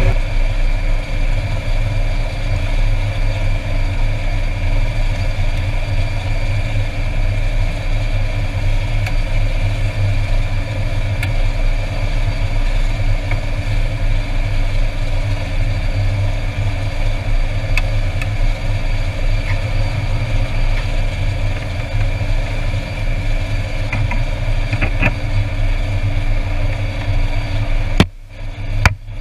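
Air Tractor 402B's Pratt & Whitney PT6A turboprop idling steadily on the ground, heard from the cockpit: a constant low propeller hum under a steady high turbine whine. A couple of clicks and a brief drop in level come near the end.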